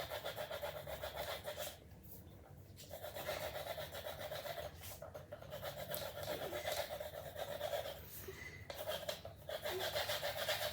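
Pencil scribbling on paper, rapid back-and-forth shading strokes in several runs broken by short pauses.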